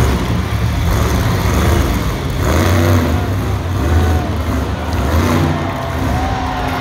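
ThunderROARus monster truck's supercharged V8 engine revving up and down in repeated surges as the driver works the throttle to hold the truck up on its rear wheels in a wheelie.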